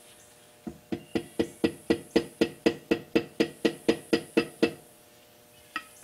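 Rapid, even tapping on a freshly laid concrete block, about four taps a second for some four seconds, setting the block down level in its mortar bed; one more tap near the end.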